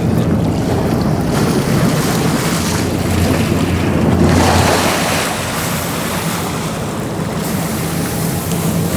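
Sportfishing boat under way: a steady engine drone under rushing water and wind buffeting the microphone. The engine note drops a little about five seconds in.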